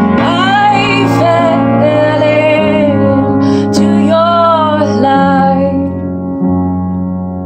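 A woman singing long, wavering notes over upright piano chords; the voice stops about five seconds in, leaving the piano playing alone.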